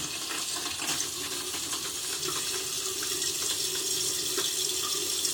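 Bathroom sink tap running steadily, with water splashing as a face is rinsed under it.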